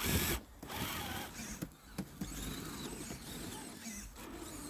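RC crawler's small electric motor and gearbox whining as the model drives, after a short loud burst at the very start.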